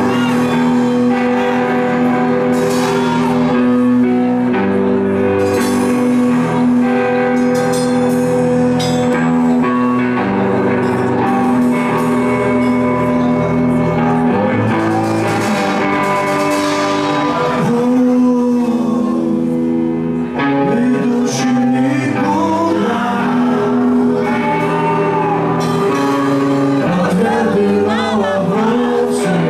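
Live rock band playing: electric guitars over a drum kit, with held chords and bending melodic lines.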